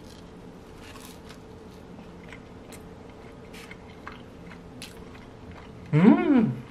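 Close-up mouth sounds of someone eating fried chicken tenders and buttered toast: faint, scattered crunchy bites and chewing clicks. Near the end comes a loud hummed "mmm" of enjoyment that rises and then falls in pitch.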